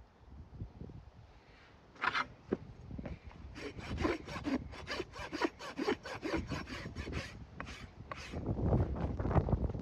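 Farrier's hoof rasp drawn back and forth across the bottom of a freshly trimmed horse hoof, levelling it: a run of quick scraping strokes, about three a second, starting about two seconds in.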